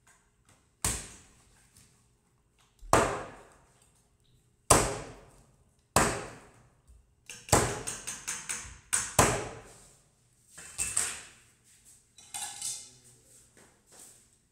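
Heavy cleaver chopping through pieces of fish on a wooden cutting board: single hard chops about every two seconds, then a quick run of several chops, then a few lighter ones.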